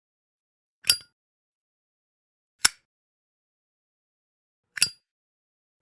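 Zippo lighter's metal lid clicking, three separate sharp clicks about two seconds apart, each with a brief metallic ring.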